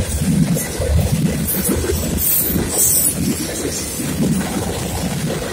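Freight train cars, covered hoppers and then tank cars, rolling past on the rails with a steady rumble and rattle of wheels and trucks. Brief high-pitched squeals come a few times in the first half.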